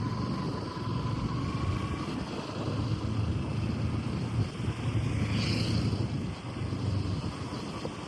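Vehicle engine running steadily with road noise while driving, a low hum throughout. A brief higher sound comes about five and a half seconds in.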